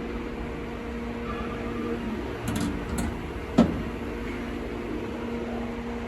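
Steady electric machine hum, with a few light clicks and one sharp knock about three and a half seconds in.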